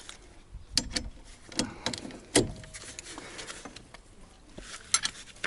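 Metal hand tools clinking as a socket wrench and extension bar are handled: a scattering of sharp clicks and clanks, the loudest about two and a half seconds in and two more close together near the end.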